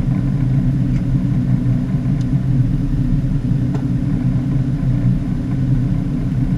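Fishing boat's engine running, a steady low hum with no change in pitch.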